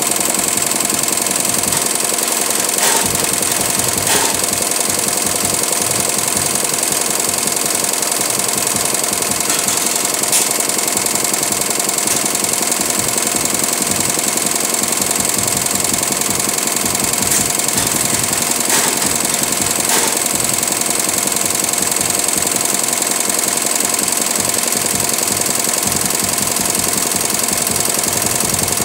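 Single-head computerized embroidery machine stitching at speed: a fast, steady needle chatter, with a few louder clicks now and then.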